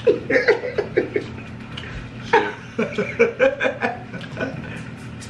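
People laughing in short chuckling bursts, twice: once in the first second and again from about two and a half to four and a half seconds in.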